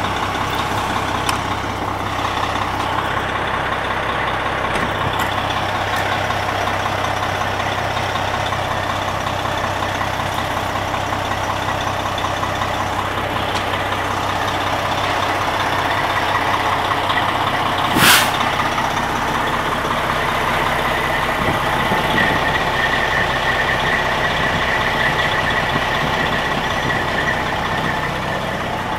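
Heavy fire truck engines running steadily at idle. A single sharp burst, the loudest sound, comes about two-thirds of the way through.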